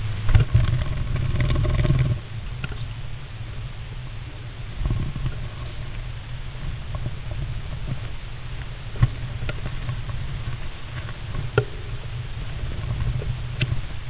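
Great spotted woodpecker preening and shifting inside a wooden nest box: scuffling and scratching of feathers and claws against the wood, with a few sharp taps, the clearest about nine and eleven and a half seconds in. A steady low rumble runs underneath and is loudest in the first two seconds.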